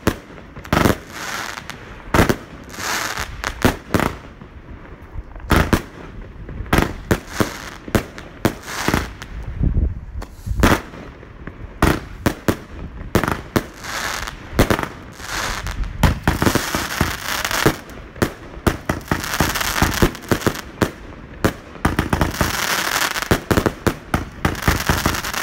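A multi-shot compound firework cake fires shot after shot at an uneven, rapid pace: launch thumps and aerial bursts, with dense crackling in the second half.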